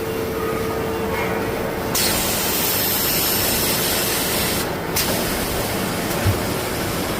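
Automatic tissue paper log saw and packing machine running with a steady mechanical noise. About two seconds in a loud hiss starts abruptly and lasts about two and a half seconds, followed by a short second hiss and a single low thump near the end.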